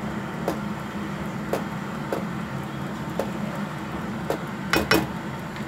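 A black spoon stirring tomato sauce in a nonstick wok, with short knocks of the spoon against the pan every second or so, two loudest close together near the end, over a steady low hum.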